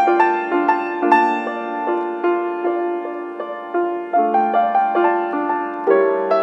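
Grand piano played four hands: a slow, gentle melody of single notes over held chords, a new note struck roughly every half second.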